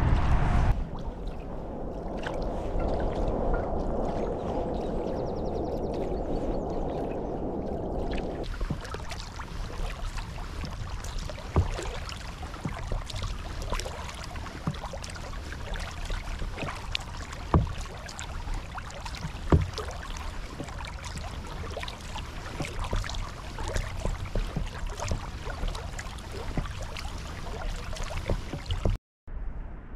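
Sea kayak being paddled on calm water: water trickling and dripping off the paddle and lapping at the hull, with a few sharper splashes of the paddle blade. For the first eight seconds a duller rushing noise covers it, then the drips and splashes come through clearly.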